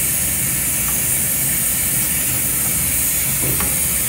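Steady hiss of food cooking on the stove over a low steady hum, with a few faint clicks.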